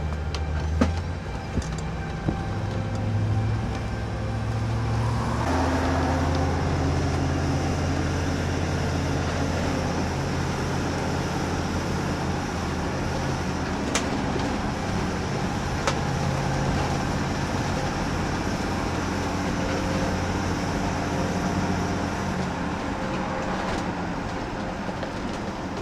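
Vehicle engine and road noise heard from inside while driving. The engine note picks up about five seconds in, then runs steadily.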